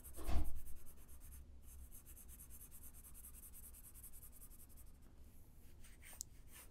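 Pencil strokes on paper, faint, as the drawing is shaded and hatched. There is a brief low bump near the start.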